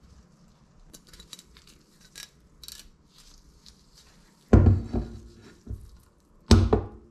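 Kitchen handling noises: light rustles and clicks, then two loud knocks as a glass milk bottle is handled on a countertop and its plastic cap is twisted off.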